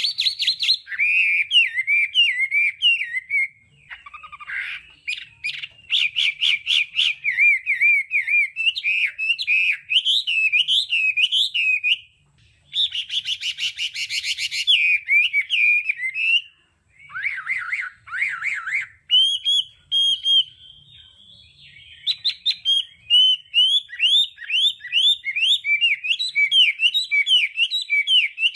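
Chinese hwamei singing a long, varied song of whistled phrases that switch between rapid repeated notes and trills, with a few short breaks between phrases.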